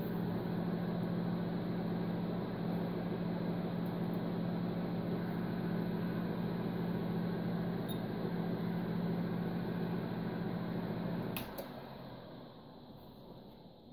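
Test rig under a 20-amp light-bulb load: a steady electrical hum with a fan-like rush. About eleven and a half seconds in, a click as the load is cut; the hum stops at once and the rush dies away.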